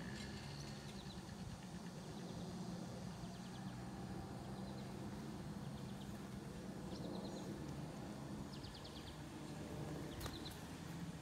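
Four-wheeler (ATV) engine running steadily at a distance, a faint low hum. Short trills of fast high chirps come and go over it, and a sharp click sounds near the end.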